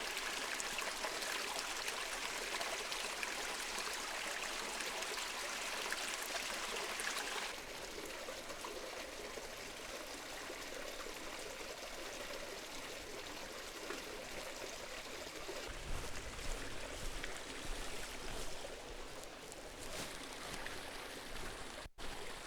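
Running water of a small stream, a steady rushing trickle that drops a little in level about seven and a half seconds in.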